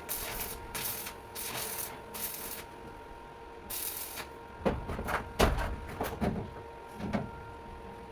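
Work noise: a few short bursts of hiss in the first half, then about five knocks and thumps between about four and a half and seven seconds in, over a steady faint hum.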